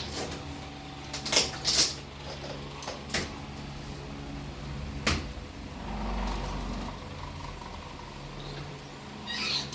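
A boxed speaker's packaging being handled during unpacking: several sharp knocks and taps, the loudest about a second and a half in, and a brief rustle near the end.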